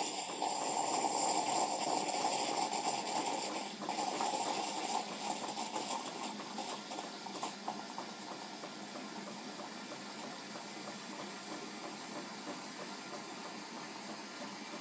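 Jura Impressa S9 automatic coffee machine hissing and gurgling with steam as it froths milk. It is loudest for the first seven seconds or so, with a brief dip near four seconds, then settles to a steadier, quieter hiss.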